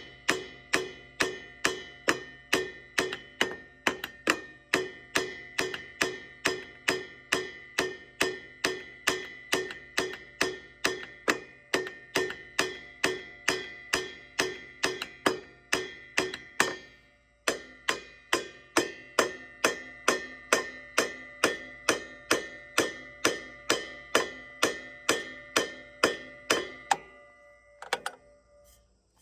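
Steady rhythmic tapping on a Farmall A tractor's carburetor, about two to three ringing metallic strikes a second, with a short break about two-thirds of the way through, stopping near the end. The tapping is meant to free a float needle that the owner suspects is sticking closed and blocking the fuel flow.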